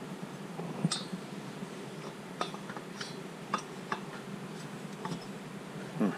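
Scattered light metallic clinks and taps, about a dozen, as a Stihl MS660 chainsaw cylinder and a billet aluminium crankcase are handled and set against each other; a louder knock comes near the end, over a steady low hum.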